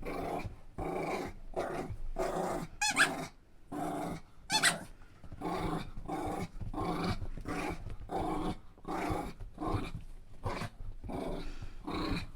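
Dog growling in play, a growl on every breath repeating about once every 0.7 seconds. Two short high squeaks about three and four and a half seconds in.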